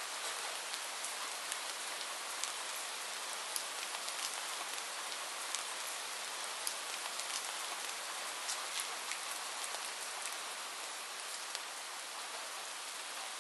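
Steady rain falling: an even hiss with many scattered, sharper drop ticks.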